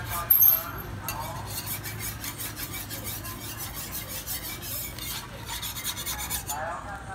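Metal spatula scraping across a jianbing griddle in repeated rasping strokes as it is worked under the thin egg crepe to lift and turn it over. A sharp knock about half a second in is the loudest sound.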